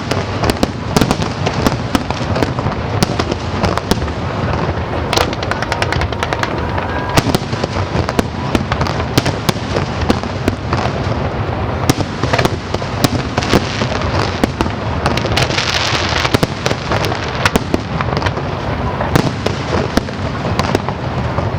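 Aerial fireworks display going off in quick succession: a dense, continuous barrage of bangs and crackling, with a burst of brighter crackle a little past the middle.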